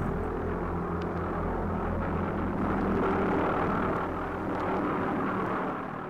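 V-1 flying bomb's Argus pulse-jet engine giving a steady, dull drone, fading out at the very end.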